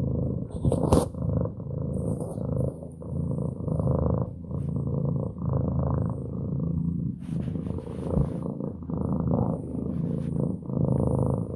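Maine Coon cat purring loudly right at the microphone, in steady cycles that swell and ease with each breath. There is one sharp click about a second in.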